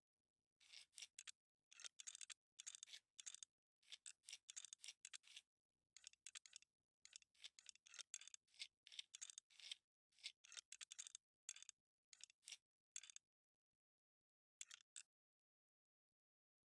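Quick, scratchy clicking in many short bursts of about half a second to a second each, with brief pauses between them: small hand work on computer parts, such as a tool or fastener being worked. The bursts grow sparser near the end.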